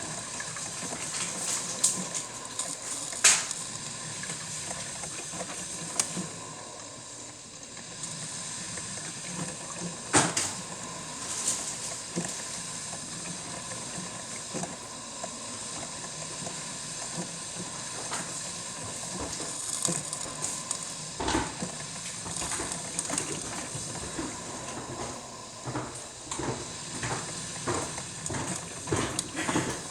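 Cuisinart drip coffee maker brewing: a steady hiss of steam with scattered pops and sputters, and a few sharper clicks about 3, 10 and 21 seconds in.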